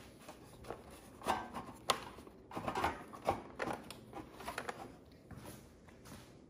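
Plastic engine cover of a John Deere LA102 lawn tractor being handled and worked loose: a run of irregular light knocks, clicks and rubbing, loudest between about one and five seconds in.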